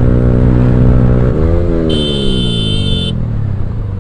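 Yamaha R15M's single-cylinder engine through a loud Akrapovic aftermarket exhaust, heard from the saddle at highway speed: the note holds steady, swells briefly about a second and a half in, then falls away as the throttle eases. A high, steady tone sounds for about a second in the middle.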